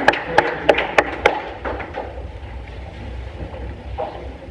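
Sparse applause from a handful of people: a few sharp claps, about three a second, that die out about a second and a half in, leaving a low steady room rumble.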